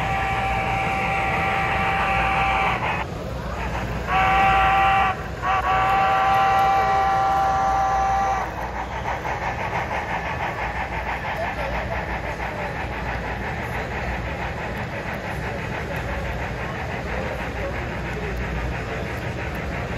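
Sound-equipped HO-scale model steam locomotive blowing its whistle three times: long, short, long. After that the model train runs on with a quick, even clicking.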